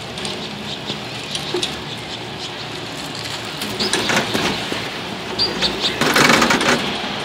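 Cable car gondola in motion, with a steady run of small ticks and rattles and a louder rush of rattling noise about six seconds in.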